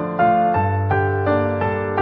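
Background music: a gentle piano melody, a new note about every third of a second over held lower notes.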